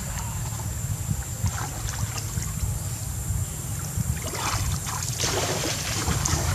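Water splashing and sloshing as a monkey swims, in short bursts that grow stronger from about four seconds in, over a steady low rumble of wind on the microphone.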